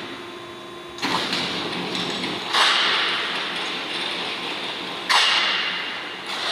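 Tsune K2 automatic circular saw machine running through its pipe-cutting cycle. It starts abruptly three times, at about one, two and a half and five seconds in. Each start is followed by a harsh hissing noise that slowly fades, over a steady machine hum.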